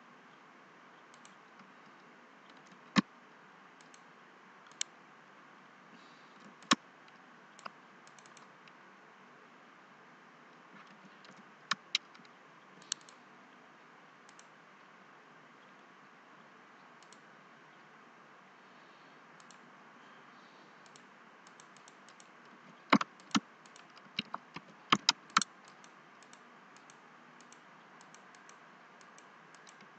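Computer mouse and keyboard clicks: single sharp clicks a few seconds apart, then a quick run of about half a dozen near the end, over a faint steady hiss.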